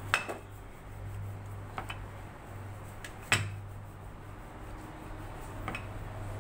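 Rolling pin rolling out a thin dough wrapper on a tiled surface, with a few sharp knocks as the pin and hands touch down, the loudest about three seconds in, over a steady low hum.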